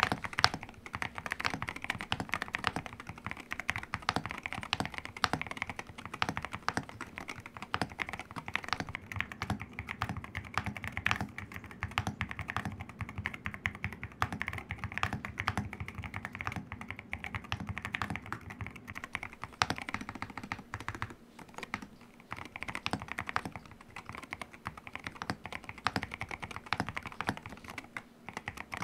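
Fast, continuous typing on an Akko MU02 mechanical keyboard in its stock form: walnut wood case with gasket mount, Akko Rosewood linear switches and double-shot PBT MOA-profile keycaps. There is a brief lull in the key strokes about 21 seconds in.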